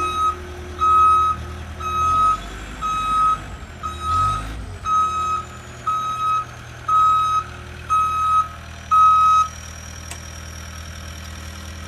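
Vehicle backup alarm beeping steadily about once a second over a running engine, as heavy equipment reverses; the beeping stops about nine and a half seconds in and the engine keeps running.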